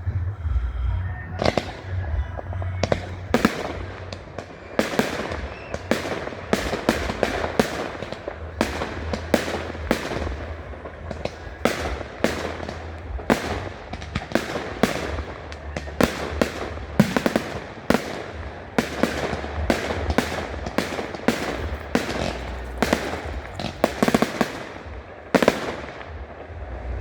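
Fireworks display: a dense, continuous run of sharp shell bursts and bangs, several a second.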